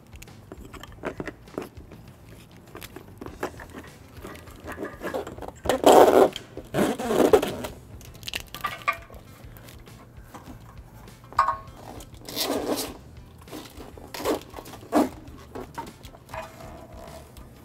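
Rustling and scraping as a wiring harness is pushed down through the car's plastic bumper cover and handled behind it. The noises come irregularly, with a few louder scrapes along the way.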